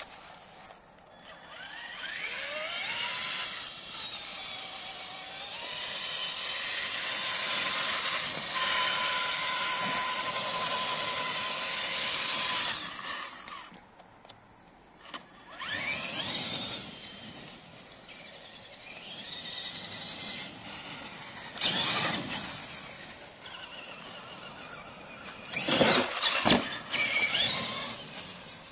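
Traxxas Summit RC monster truck's electric motor and drivetrain whining in repeated surges, rising in pitch as it accelerates. Between about 6 and 12 seconds in it holds a steady high whine at speed. The loudest burst comes near the end.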